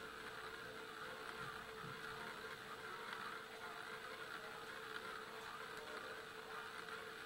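A steady buzzing hum with a fluttering hiss above it, unchanging throughout.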